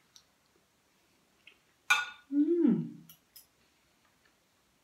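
Metal spoon and fork clinking on a plate, a sharp clink about two seconds in and two light clicks a little later. Between them a woman gives a short closed-mouth hum while chewing, rising then falling in pitch.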